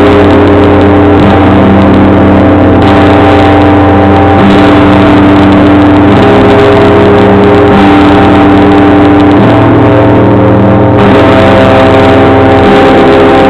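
Russian church bells ringing, dominated by a multi-ton great bell: very loud, a deep sustained hum under many overlapping steady ringing tones, the low hum shifting a few times as fresh strokes land.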